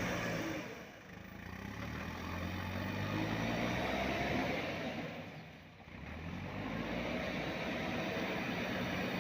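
Diesel engine of a JCB 3DX backhoe loader running while it levels ground, a steady low hum with noise over it. The sound briefly drops away twice, about a second in and near six seconds, then comes back to full level.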